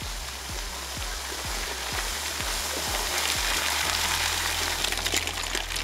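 Water splashing and spraying from the fat low-pressure tyres of a 2x2 electric bike driving through shallow river water, swelling to its loudest about three to five seconds in as the bike passes close. Background music with a steady beat runs underneath.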